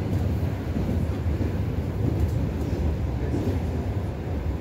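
Steady low rumble of an ЭП2ДМ electric multiple unit under way, its wheels running on the rails, heard from inside the passenger car.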